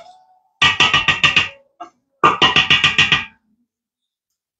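A short burst of synthesizer music: two phrases of quick repeated notes, each about a second long, with a brief gap between them, then it cuts off to dead silence.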